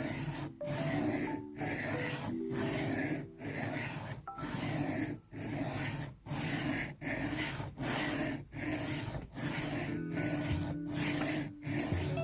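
Knife blade rasping back and forth across a 400-grit diamond sharpening plate during freehand reprofiling of the edge. The strokes come evenly, a little more than one a second.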